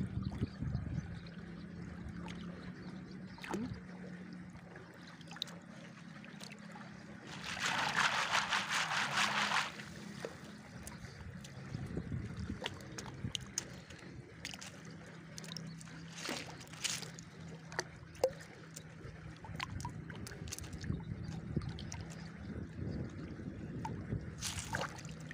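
Water sloshing and trickling as a plastic basket is worked in shallow river water to sift out kupang clams, with a loud rush of splashing water for about two seconds a third of the way in. Later come small scattered clicks as the clam shells are handled in the basket, over a steady low hum.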